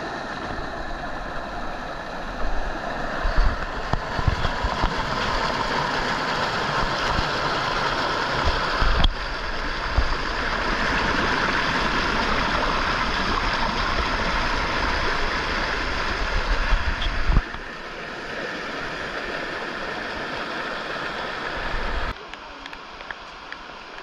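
A shallow rocky stream rushing and splashing over boulders in small cascades, a steady rush of water. The rush steps up or down in level suddenly a few times.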